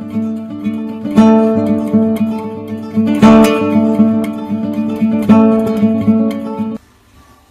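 Background music: an acoustic guitar strumming chords, with a strong strum about every two seconds, cutting off suddenly near the end.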